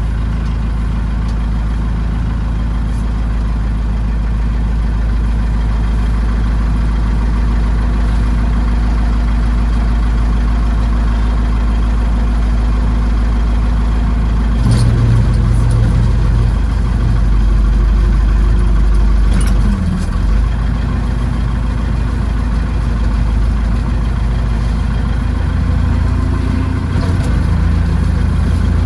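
Backhoe tractor's engine running steadily, changing pitch and load about halfway through as it works, with a short dip a few seconds later.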